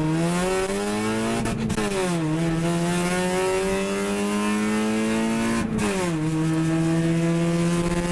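Motor vehicle engine accelerating, its pitch climbing and then dropping sharply at two gear changes, about two and six seconds in, before holding steady near the end.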